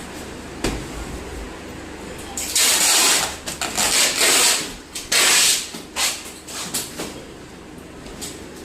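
Packing tape being pulled off its roll in several loud tearing strips, each about half a second to a second long, with rustling between them.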